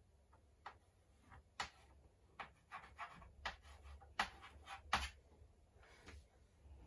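Chalk tapping and scratching on a chalkboard while numbers are written: a run of short, irregular taps and scrapes, loudest about four to five seconds in.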